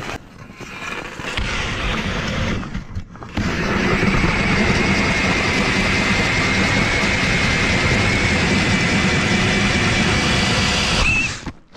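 Powered ice auger drilling a hole through river ice: a steady motor whine that comes up to full load about three and a half seconds in, then rises briefly in pitch and stops abruptly near the end.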